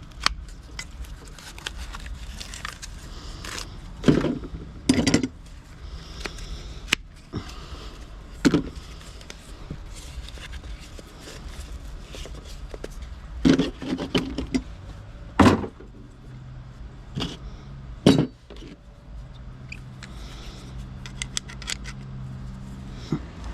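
Scrap metal being handled and pulled apart by hand: irregular clanks and rattles, with about six louder knocks among lighter clinks. A low steady hum comes in about two-thirds of the way through.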